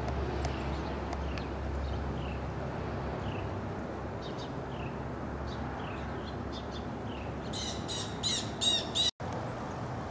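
Birds calling, with short falling chirps scattered throughout and a run of four loud, harsh calls in quick succession near the end, over a steady low background rumble; the sound cuts out for an instant just after the loud calls.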